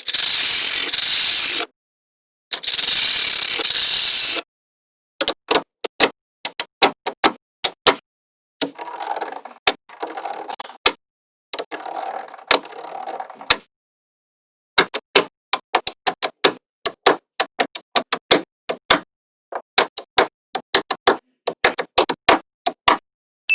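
Small magnetic balls clicking together as they are snapped into place, in quick runs of sharp clicks broken by pauses. Near the start there are two loud hissing stretches of about two seconds each, and in the middle two duller scraping stretches.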